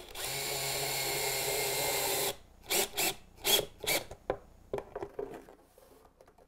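Cordless drill/driver running steadily for about two seconds, driving a screw through a figure-eight fastener into a wooden tabletop. It is followed by a few short, sharp bursts and then light knocks that fade out.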